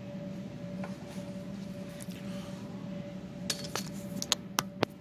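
A steady low hum, then a quick run of about five sharp metallic clinks and clicks in the last second and a half, as small metal tools and parts are handled and set down.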